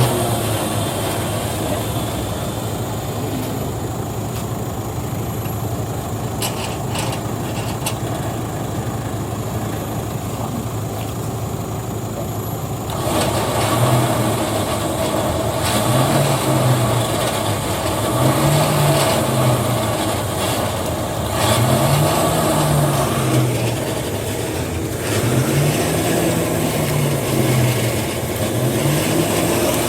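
An engine running steadily, then from about halfway through revving up and down over and over, rising and falling every few seconds as if under changing load.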